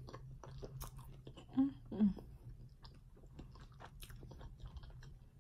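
A person chewing a mouthful of grilled cheese sandwich close to the microphone: a run of small wet clicks and crunches, with two short hums from the eater near the middle.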